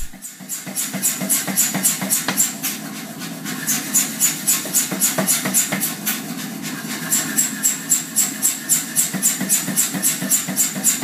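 Rapid, even hammer blows on hot bar stock, about four or five a second, drawing out a taper on the end of the bar. The blows ease off for a moment and then come on harder. A steady low rumble runs underneath.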